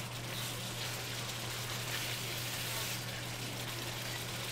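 Browned onions, ginger-garlic paste and whole spices frying in oil in a wok, a steady sizzle.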